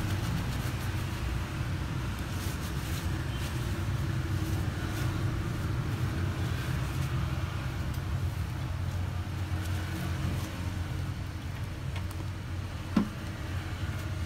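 Tattoo machine running with a steady low buzz. A single brief, sharp sound stands out near the end.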